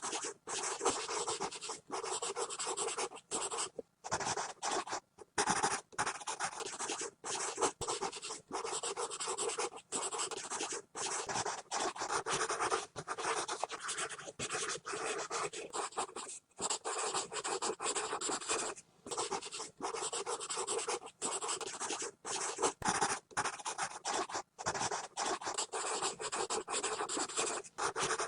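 Pencil scribbling fast on paper: a continuous scratching of graphite strokes, broken by many brief pauses where the lead lifts off the page.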